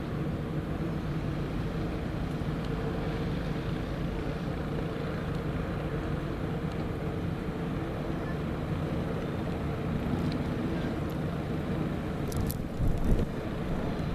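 An engine running steadily, with a couple of short knocks about twelve seconds in.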